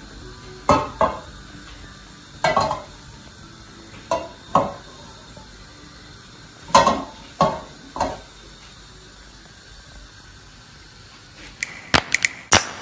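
Metal cooking pot shifting and scraping on a gas-stove grate as it is moved by its handle, in pairs of short scrapes every second or two, then a quick run of clicks near the end.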